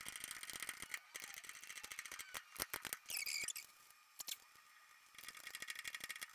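Ratchet wrench clicking rapidly in two runs, at the start and again near the end, as the caliper bracket's bolts are run in against the rear axle, with a few sharper metal clacks in between.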